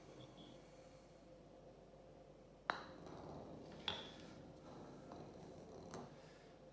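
A putter strikes a golf ball once with a sharp click a little under three seconds in, and the ball rolls away across a hard tile floor with a low rumble. Two lighter clicks with a short ring follow, about a second later and near the end.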